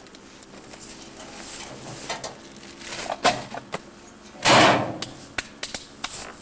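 A litter bin's lid knocked open and shut while a plastic rubbish bag rustles as it is dropped in, the loudest rustle about two-thirds of the way through, followed by several sharp knocks.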